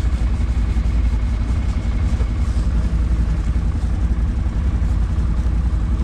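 ATV engine running steadily, with a constant low rumble.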